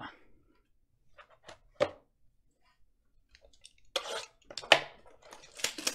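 Hands handling trading cards and a cardboard blaster box of card packs: a few light clicks and taps, then, from about four seconds in, louder knocks and rustling as a pack is pulled from the box.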